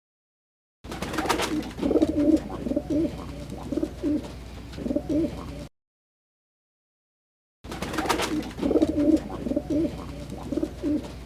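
Pigeons cooing: a series of low, wavering coos, in two stretches separated by about two seconds of silence.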